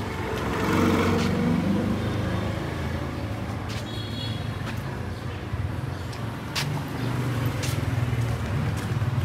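A small car drives slowly past at close range: a low engine hum and tyre noise that swell about a second in, then settle into a steady low engine hum in the street. A few sharp clicks and a brief high chirp about four seconds in are heard over it.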